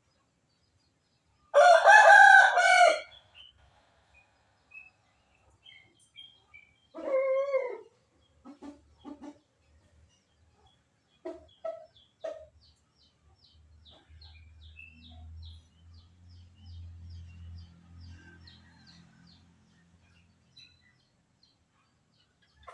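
A rooster crows loudly once, then gives a shorter, softer call a few seconds later. Faint high chirps of small birds follow over a low rumble.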